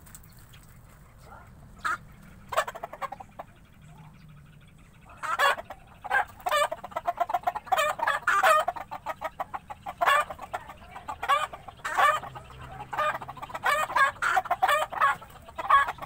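Chickens clucking in a long, dense run of short calls starting about five seconds in, after a couple of sharp knocks about two seconds in.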